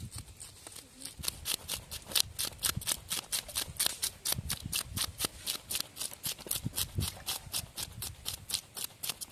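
A blade scraping the scales off a fish, in quick, even strokes of about five a second.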